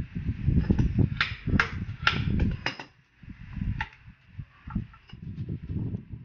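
Socket wrench with an extension loosening the 8 mm bolts under a scooter's front fender: low knocking and rubbing, with a handful of sharp metallic clicks in the first four seconds.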